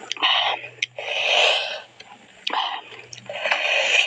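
Close-miked eating noises: four loud, noisy bursts of mouth sounds, chewing and sucking on food, with short pauses between them.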